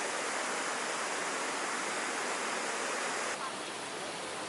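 Steady rush of falling water from a small creek waterfall, dropping a little in level about three seconds in.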